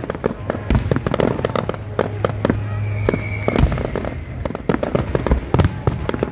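Fireworks display: many aerial shells bursting and crackling in rapid, overlapping volleys, with a brief high whistle about three seconds in.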